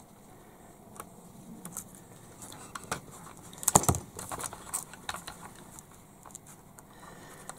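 Small clicks and rustles of hands handling a plastic toy excavator arm and threading a nylon cable tie. Just before four seconds in comes a louder clatter as a pair of pliers is set down on the bench.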